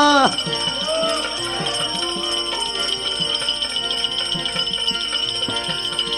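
Instrumental passage of a bhajan: held drone tones and a short melodic phrase, steady jingling, and regular hand-drum beats. A sung line trails off just after the start.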